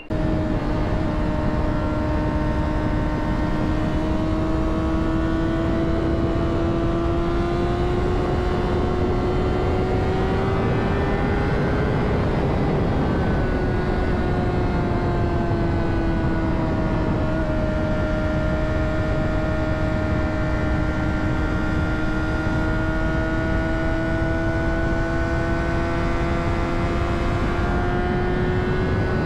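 2009 Honda CBR600RR's inline-four engine running at steady high revs while riding, its pitch climbing slowly, dipping about twelve seconds in, then climbing again, under heavy wind noise.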